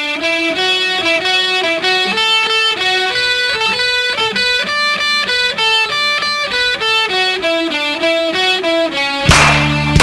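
Music: a clean electric guitar picking a melody of single notes. About nine seconds in, loud sharp hits come in over a full, held low chord.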